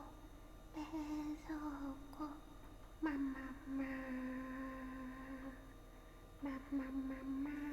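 A young woman humming wordless notes in a tipsy way: a few short ones, then a long held note of about two and a half seconds starting about three seconds in, and more humming near the end.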